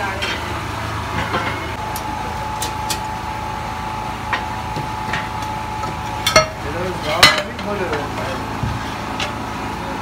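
Steady machine hum in a foundry workshop, with scattered sharp metal clanks and knocks of a ladle as molten brass is scooped from the furnace, the loudest two about six and seven seconds in; the hum drops away near the end.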